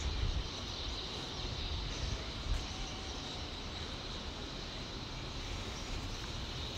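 Steady outdoor background noise: a low, unsteady rumble under a faint even hiss.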